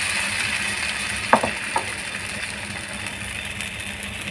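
Semolina pancake batter sizzling on a hot nonstick pan, a steady hiss that slowly fades, with two light knocks about a second and a half in.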